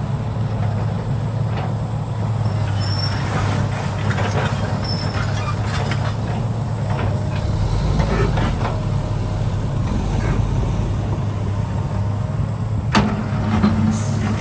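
Diesel engine of heavy construction machinery running steadily, with scattered small metallic knocks. Near the end comes a sharp clank, after which the engine note rises.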